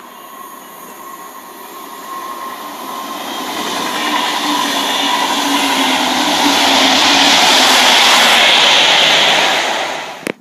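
Double-deck passenger train with an ME-class diesel-electric locomotive approaching and passing close by. It grows steadily louder and is loudest as the locomotive goes past, with rail noise and a steady engine hum. The sound cuts off abruptly near the end.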